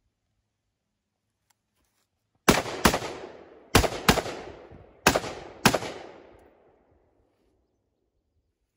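Six gunshots fired as three quick pairs, the shots in each pair a fraction of a second apart and the pairs about a second apart, each shot trailing off in an echo.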